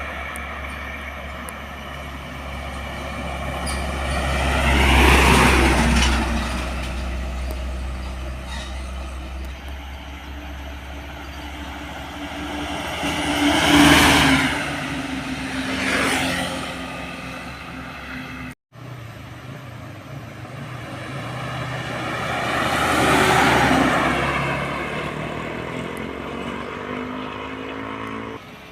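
Trucks driving past one after another: engine and tyre noise swells and fades with each of four passes, the first with a heavy low engine rumble. There is an abrupt cut about two-thirds of the way through.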